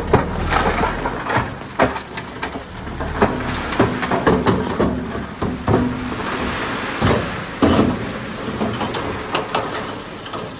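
Bulldozer pushing debris: irregular cracking and knocking of breaking wood and trash over a low engine rumble.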